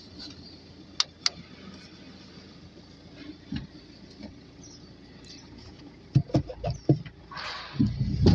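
Two sharp clicks about a second in, then a run of knocks and bumps in the last two seconds, inside a car cabin.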